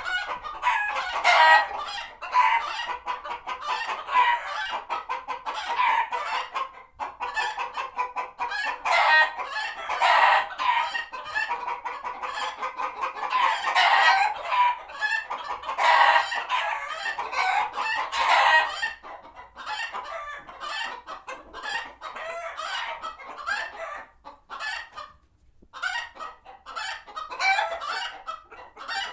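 Flock of chickens clucking in alarm at a passing hawk, many birds calling over one another. The calling is densest and loudest for the first twenty seconds or so, then thins out and grows quieter, with a short lull near the end.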